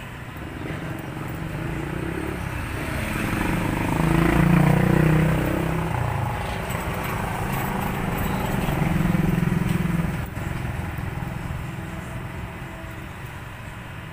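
A motor vehicle engine passing by, growing louder to a peak about four to five seconds in, then a second swell around nine seconds before it fades.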